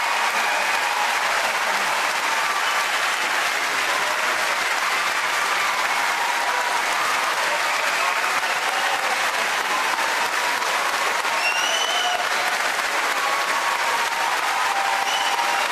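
Large audience applauding steadily: a standing ovation.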